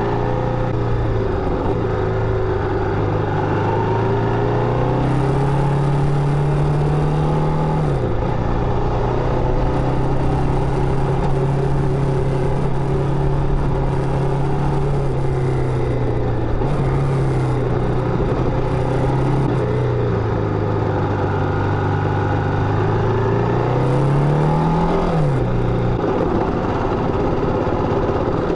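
Motorcycle engine running under way at moderate revs. Its pitch mostly holds steady, but twice it climbs and then drops sharply: about a third of the way in and again near the end.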